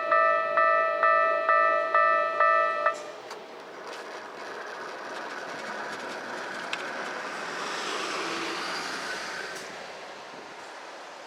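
Level crossing warning bell clanging about twice a second, then stopping about three seconds in. Afterwards a hissing rush of passing noise swells for several seconds and fades near the end.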